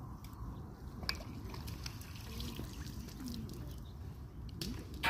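Faint water trickling and dripping as a landing net with a trout is worked in a pond, over a low rumble of wind on the microphone. There are a few small clicks near the end.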